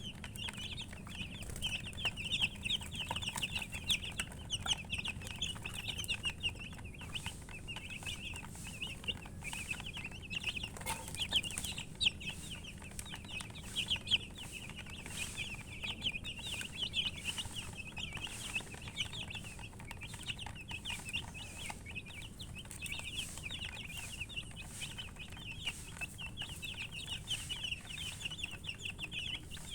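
Baby chicks peeping without pause, many short high chirps overlapping.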